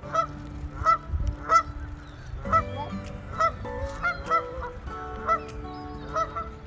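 Geese honking, short calls repeated about twice a second, several birds overlapping more densely from about halfway through.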